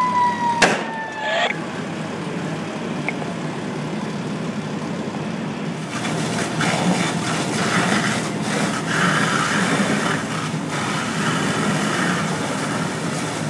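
A fire engine siren winding down with a slowly falling pitch, cut by a sharp bang about half a second in and a weaker one a second later. From about halfway on, the steady hiss and spatter of a fire hose stream played onto the burning car.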